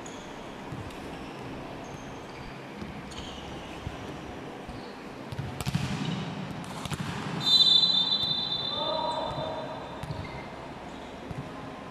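Volleyball match sounds in a large echoing hall: scattered shoe squeaks and ball thuds, then a referee's whistle blown once, held for about a second and a half, about seven and a half seconds in. Near the end the server bounces the volleyball on the court floor before serving.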